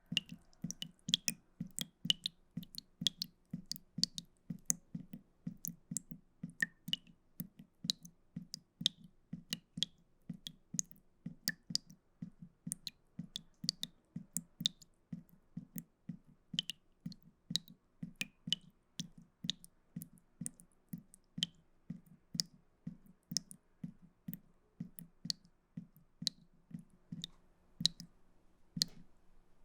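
Water drops falling fast into a pool of water, several a second in an uneven stream. Each drop makes a sharp plink with a brief ringing tone.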